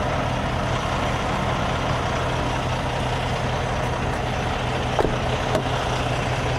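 Semi-truck diesel engine idling steadily, a constant low hum heard from inside the cab.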